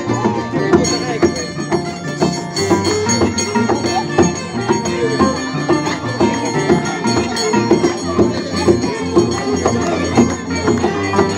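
Andean harp and violin playing a traditional folk tune, the harp's bass notes stepping along underneath, with crowd voices mixed in.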